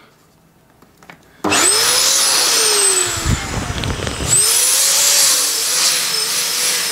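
Electric balloon pump switched on about a second and a half in, blowing up a latex balloon. Its motor runs with a whine that sinks in pitch as the balloon fills, changes about three seconds in, then whines again from about four and a half seconds.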